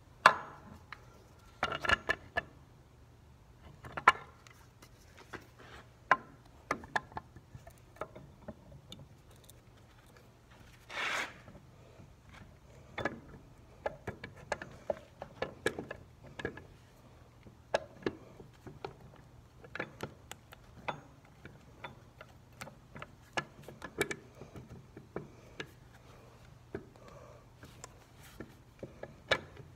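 Metal starter assembly being handled and fitted by hand against an engine's flywheel housing: scattered, irregular clicks, taps and knocks of metal on metal, with a short scraping rub about eleven seconds in.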